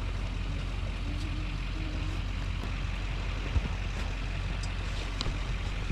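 Truck engine running steadily with a low rumble, and a single knock about three and a half seconds in.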